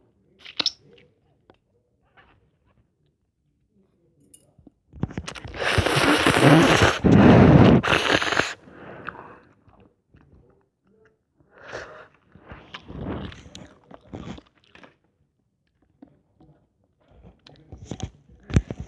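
Close-miked eating of ramen noodles: chewing and mouth sounds in separate spells, with one loud stretch of about three seconds near the middle and quieter chewing after it.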